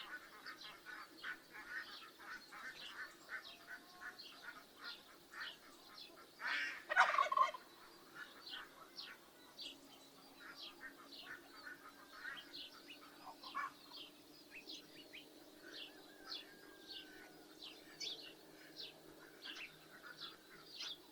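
A domestic turkey gobbles once, loudly, about six seconds in, over steady quick chirping of small birds.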